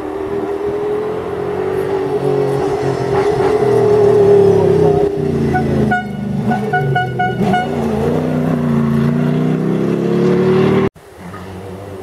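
Rally-raid Nissan pickup's engine running hard at a fairly steady pitch as the car speeds in on a gravel stage, loudest about four seconds in. There is a quick string of short high beeps at about six to seven and a half seconds. Near the end the sound cuts off abruptly and a second rally car, a Mitsubishi Pajero, is heard more faintly approaching.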